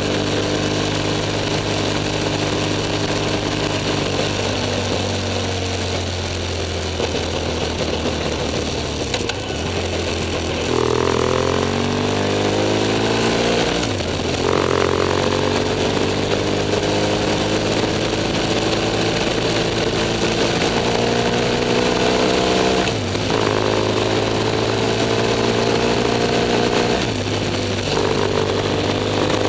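BMW F 800 S parallel-twin engine running under way, its note climbing in pitch and dropping back several times as the bike accelerates through the gears, with a steady rush of air underneath.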